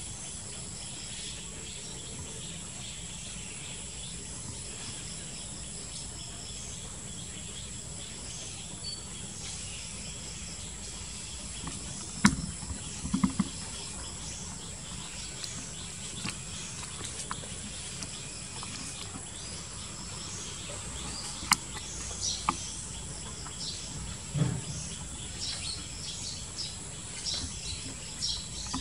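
Outdoor ambience: a steady high insect drone with scattered bird chirps. A few sharp clicks and low thumps come about halfway through and again near the end.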